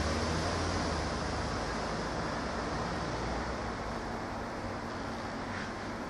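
Steady outdoor background noise: a low rumble with a hiss over it, which eases off over the first few seconds.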